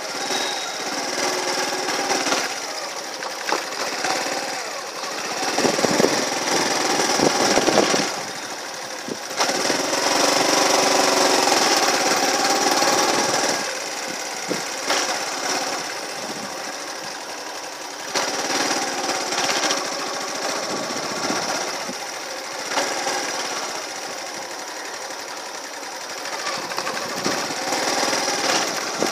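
Small vehicle engine running with a rattly drone while riding along, louder for a few seconds in the middle.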